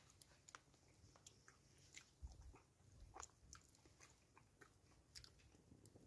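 Faint scattered clicks and rustles of a spoon scooping food from a meal pouch, with quiet chewing.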